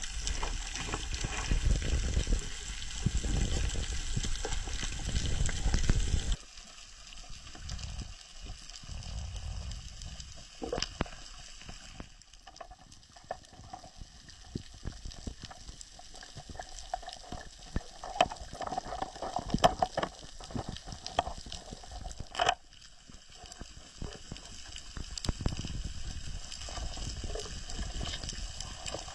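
Underwater ambience: a loud low rushing of water for the first six seconds or so, then a sudden drop to quieter water noise full of fine crackling and scattered sharper clicks.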